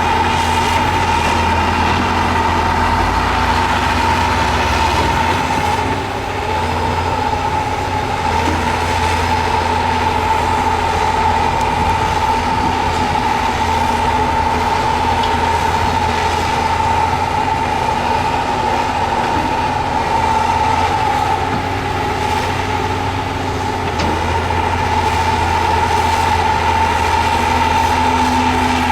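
Heavy earthmoving machinery running steadily: a diesel engine rumbling with a constant high whine held throughout.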